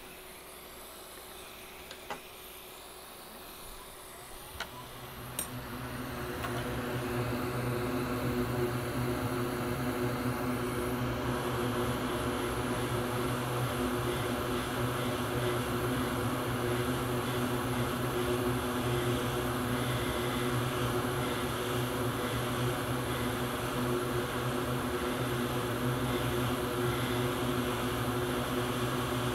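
Hakko FR-810B hot air rework station's blower starting up about five seconds in, after a couple of light clicks, then running steadily with a constant fan hum as it blows hot air onto a graphics-card memory chip to melt its solder for removal.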